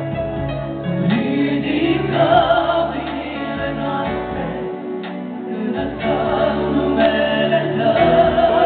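Live Christian worship song sung in Romanian by a small group of women's and men's voices into microphones. The voices are amplified through loudspeakers over sustained keyboard accompaniment.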